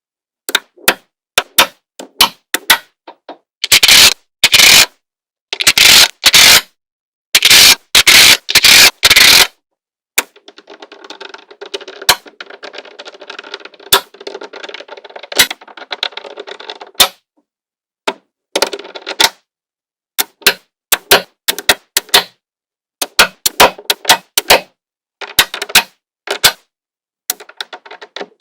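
Small magnetic balls clicking and snapping together, with loud rapid clusters of clatter in the first half and a softer rolling rattle of balls between them.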